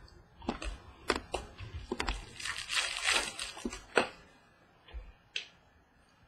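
Baseball trading cards being handled: glossy cards flicked and slid off a small stack one at a time, giving a run of sharp clicks and a longer papery rustle about two and a half seconds in.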